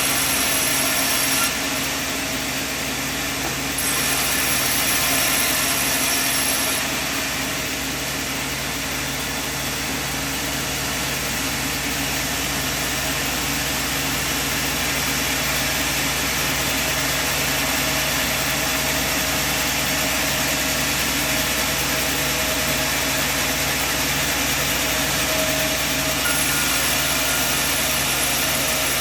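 Sawmill machine running steadily with a constant low hum, a high whine coming and going twice in the first seven seconds and again near the end.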